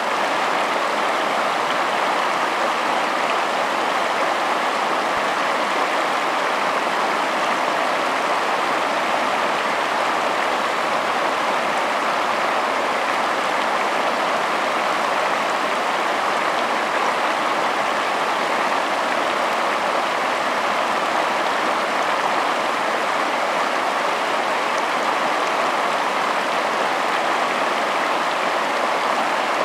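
River water rushing and splashing over rocks in shallow rapids: a steady, unbroken hiss that sits highest in pitch around the middle.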